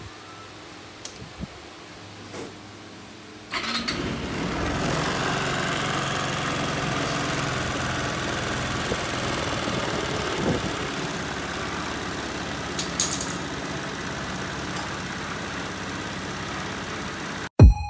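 Many 110 scooter engine starting about three and a half seconds in, then running steadily.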